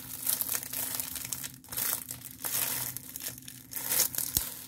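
Plastic packaging of diamond painting kits crinkling and rustling as the kits are handled, in a string of irregular rustles, the loudest about four seconds in.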